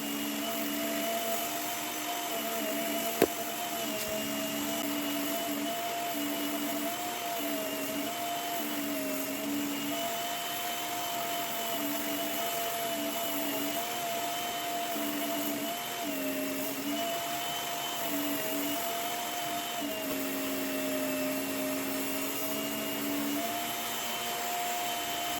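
Work Sharp Knife and Tool Sharpener belt motor running steadily with a whine whose pitch dips slightly now and then as the naginata blade is drawn across the moving belt in sharpening passes. There is a sharp click about three seconds in, and the motor sound stops abruptly at the end.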